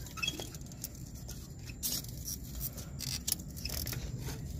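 Hands working a wiring harness and plastic electrical connector at a car alternator: light scattered clicks and scraping of plastic and metal, with a couple of louder scrapes about two and three seconds in.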